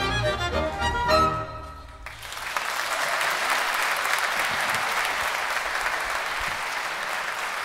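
A small live dance band of clarinet, violin, piano, double bass and accordion plays the closing notes of a song, which stop about a second and a half in. An audience then applauds steadily for the rest of the time.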